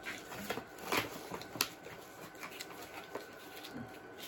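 Gloved hands kneading and handling sticky pop-up bait dough: soft rubbing and squishing with a few light clicks and taps, the sharpest about a second in.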